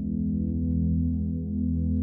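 Background music: a slow ambient synthesizer pad holding a deep sustained chord, with faint soft ticks above it.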